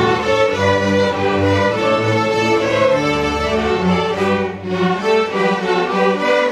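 High school string orchestra playing a loud, full passage, with violins over cellos and double basses.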